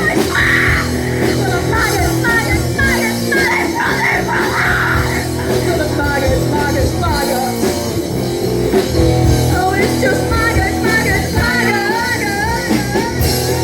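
Heavy rock band playing live at full volume, without vocals: drums, bass and distorted guitars, with a lead line of wavering, bending notes over the top.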